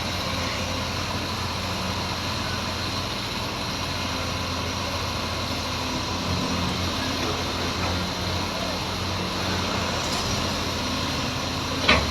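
A heavy machine's engine running steadily, with a single sharp knock near the end.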